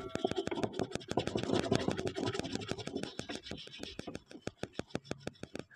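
Dense scratching with a rapid run of small clicks, easing off near the end.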